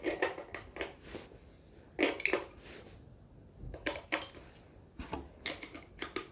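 AA batteries being fitted into an RC transmitter's battery compartment: a series of sharp clicks and small clattering knocks, the loudest about two seconds in.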